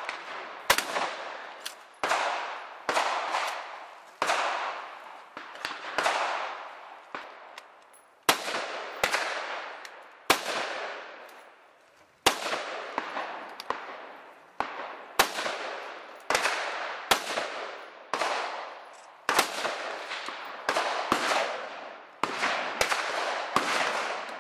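Gunfire from an outdoor shooting range: about thirty shots at irregular intervals, roughly one a second and sometimes two in quick succession, each ringing off in a long echo.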